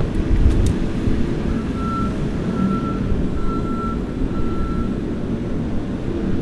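Skid steer engine running steadily while its backup alarm sounds four evenly spaced beeps in the middle, as the machine reverses.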